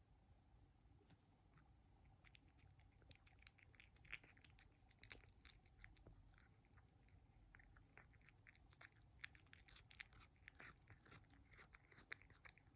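Faint chewing of a cat eating a piece of raw herring: soft, irregular clicks and smacks.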